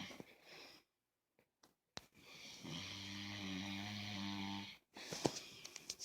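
A man snoring in his sleep. The tail of one snore comes at the start, then a long, steady pitched snore begins about two seconds in and lasts nearly three seconds. A few short, sharp clicks follow near the end.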